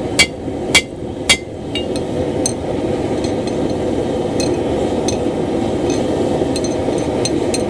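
Hammer driving a nail used as a punch into a hot steel billet on an anvil. Three hard ringing blows come in the first second and a half, followed by lighter, quicker ringing taps. The forge runs steadily underneath.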